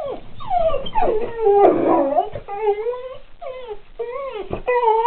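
A pit bull 'talking': a string of drawn-out whining, howling calls that rise and fall in pitch one after another, with a rougher, noisier call about two seconds in. It is the dog's excited vocalizing at another dog seen outside.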